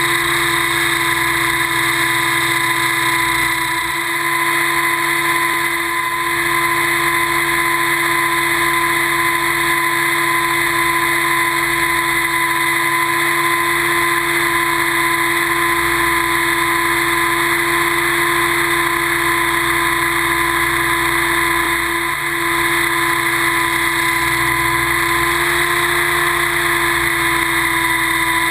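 Kasama 90E radio-controlled helicopter's drivetrain and rotors running steadily in flight, heard from on board: a loud, constant whine held at an even pitch, dipping slightly a few times.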